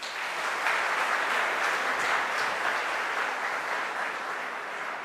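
An audience applauding with steady clapping after a speech, easing slightly near the end.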